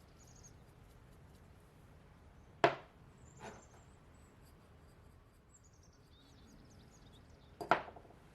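A few sharp knocks, like chopping or striking: a loud one about two and a half seconds in, a softer one just after, and another loud one near the end.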